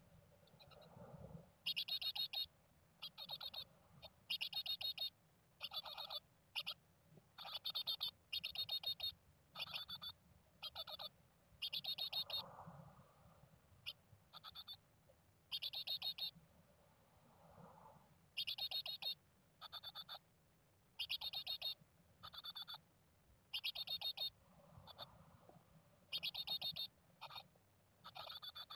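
Japanese tit nestlings in the nest box giving short, buzzy chirping calls, close to the microphone, repeated about once a second with a few brief pauses.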